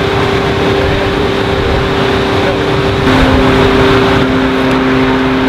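Engine of the crane lifting a heavy timber ship's frame, running steadily with a droning hum that shifts lower in pitch about three seconds in.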